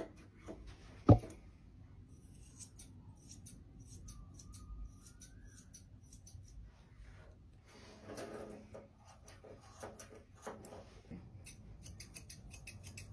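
Grooming scissors snipping through a dog's coat: quiet, quick metallic snips in irregular runs, with one sharper click about a second in.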